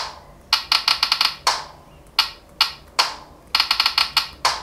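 Drum and cymbal hits from the Real Drum app on an Itel P40 smartphone as its on-screen pads are tapped, with little bass. There is a quick run of hits, then three single hits about half a second apart, then another quick run near the end.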